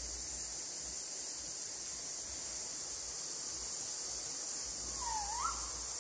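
Steady high-pitched hiss of a forest insect chorus, with one short bird call near the end: a quick note that dips and then sweeps sharply up.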